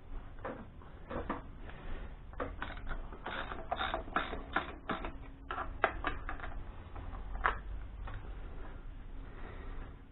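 Irregular metallic clicks and taps of a hand tool working at a Weber 32/36 carburettor on a Ford Pinto engine's inlet manifold. They come thickest in the middle, with a last sharp click about seven and a half seconds in.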